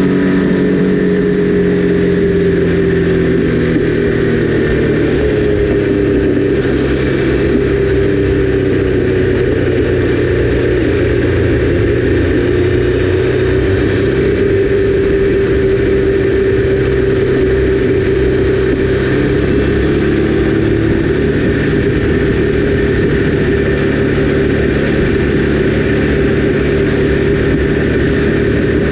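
Triumph Daytona 955i sport bike's three-cylinder engine running at a steady cruise under way, its pitch easing off and picking up a little a few times, with constant wind rush over the bike-mounted camera.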